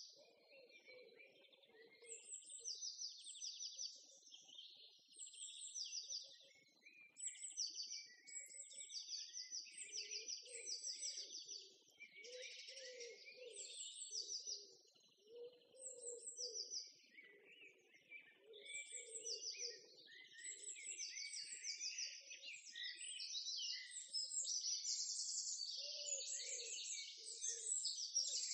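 Small birds chirping and twittering in quick repeated phrases, with a lower call coming and going underneath.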